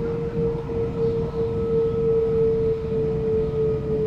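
Waratah Series 2 electric train running between stations, heard from inside the carriage: a steady whine from the traction motors, drifting slightly lower in pitch, over the low rumble of the wheels on the track.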